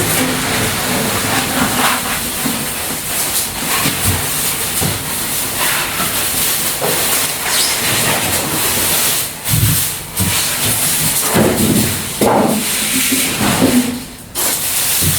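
Packaging being pulled and torn off a new washing machine: continuous rustling and scraping of wrapping, with a few dull knocks.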